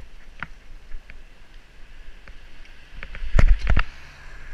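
Wind buffeting the microphone and rattling knocks from a mini bike riding over a bumpy path, with a loud cluster of knocks and a low thud about three and a half seconds in as it crosses a rough patch.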